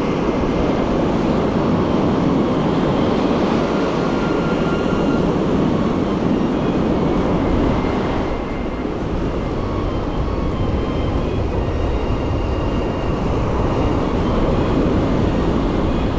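Steady roar of wind and breaking surf on an open sandy beach, a continuous rushing noise that shifts somewhat deeper about halfway through.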